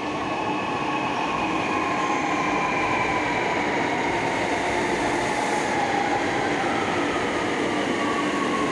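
Chennai Metro train pulling into the station: steady rolling noise with a motor whine that slowly falls in pitch as it slows, growing louder over the first second or so.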